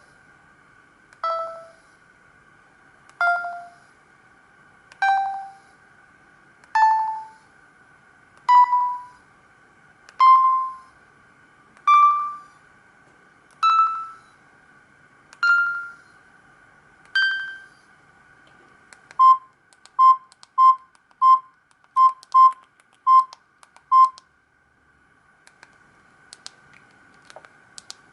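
Samsung GT-E1175T phone ringtone played through the phone's small speaker. About ten single beeping notes come roughly two seconds apart, each a step higher in pitch than the last. From about two-thirds in, a quick uneven run of eight short beeps on one pitch follows, then faint clicks near the end.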